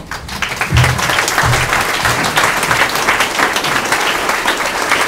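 Audience applauding: many people clapping together in a dense, steady patter at the close of a talk.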